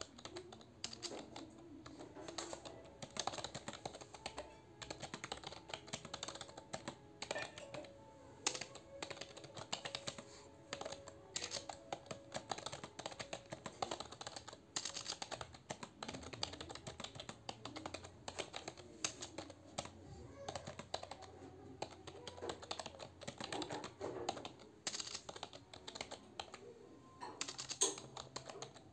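Continuous fast typing on a computer keyboard: keys clicking in quick, irregular succession with no break.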